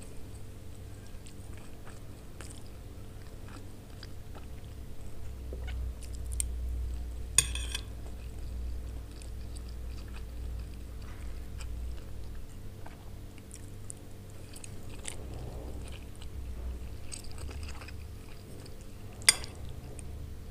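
Close-miked chewing and biting of fried pasta, over a low steady hum, with two sharp clicks: one about seven seconds in and one near the end.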